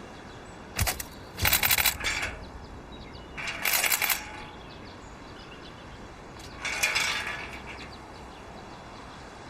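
Three short bursts of clicking and clattering, like small hard objects being handled or knocked together, after a single sharp click about a second in.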